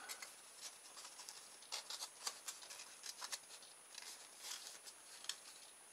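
Light handling noises: pieces of a polystyrene foam plate and a drinking straw picked up and moved about on a workbench, making faint, scattered ticks, taps and scrapes.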